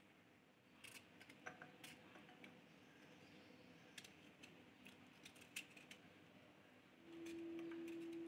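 Faint scraping and small clicks of a knife peeling a raw mango, with strips of peel dropping into a ceramic bowl. A steady low hum comes in about seven seconds in and is the loudest sound.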